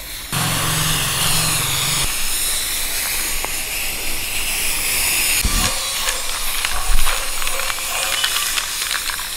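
Aerosol spray-paint can hissing as blue paint is sprayed across a plywood sheet, with an abrupt change in the hiss about five and a half seconds in.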